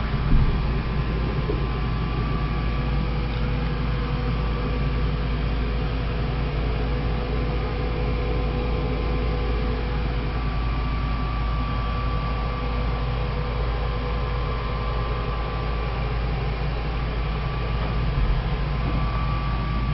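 A steady low mechanical hum with hiss and two faint steady whines, and a brief bump just after the start.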